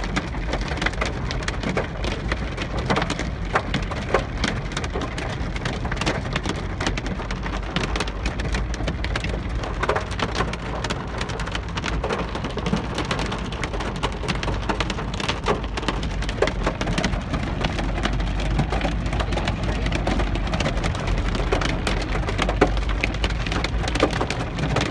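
Hail and rain pelting a car's roof and windshield, heard from inside the cabin: a dense, steady clatter of countless sharp ticks over the low rumble of the moving car.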